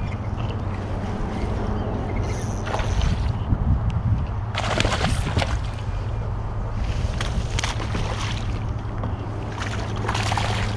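Kayak paddle strokes in the water, a splash about every two and a half seconds, over a steady low hum.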